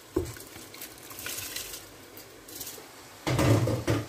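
Washed basmati rice poured from a glass bowl into a pot of boiling water, pattering softly into the water. Near the end comes a louder stretch of a silicone spatula stirring the rice in the pot.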